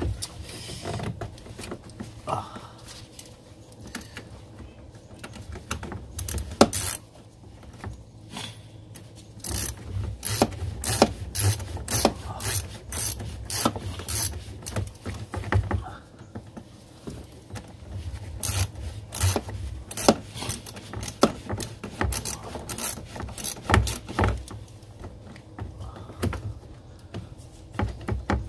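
Socket ratchet wrench clicking in quick runs with short pauses, worked back and forth on a stuck bolt at a car battery.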